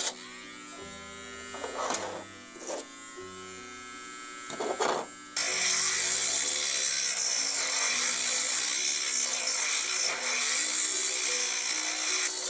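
Cordless Dremel 7300 rotary tool grinding down the edges of parts so they fit. It buzzes in a few short spurts, then runs steadily from about five seconds in. Background music plays throughout.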